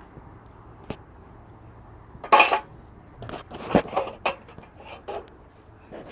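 Metal hand tools clinking, knocking and scraping on a tractor's generator mounting while the generator is loosened to adjust the fan belt. One louder scrape comes about two seconds in, then a run of short clinks and knocks.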